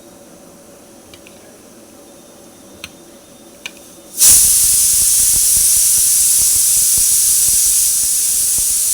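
A few light clinks, then about four seconds in a loud hiss starts abruptly and holds steady: hot oil sizzling in a pan as ingredients go in for a tarka.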